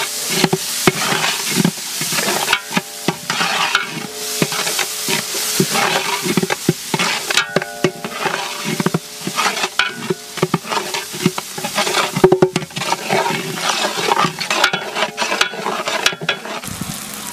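A flat metal spatula stirring and scraping spice masala frying in oil in a large metal pot: a steady sizzle with many quick scrapes of metal on the pot's bottom and sides.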